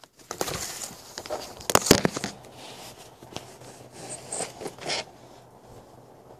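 Handling noise: rustling and a cluster of sharp clicks as the recording phone is moved and steadied, loudest just before two seconds in, with more rustling around four to five seconds in.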